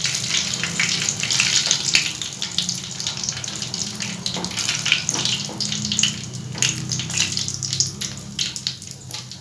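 Whole spices (cumin, mustard seeds, bay leaves and a dried red chilli) sizzling and crackling in hot oil in a kadai, the tempering for dal fry, while a wooden spatula stirs them. The sizzle eases off somewhat toward the end.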